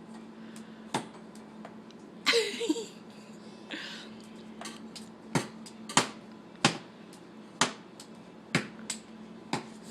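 Dishwasher played as a drum set: sharp single knocks, a few scattered at first, then about one hit a second through the second half, with a short rattling scrape about two and a half seconds in. A steady low hum runs underneath.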